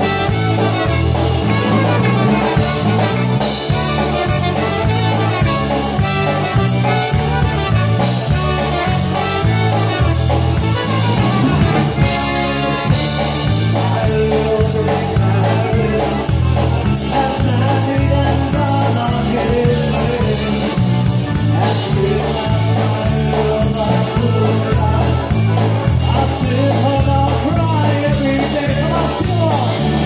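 Live polka band playing a polka: piano accordion, trumpet and drum kit over a steady alternating bass line.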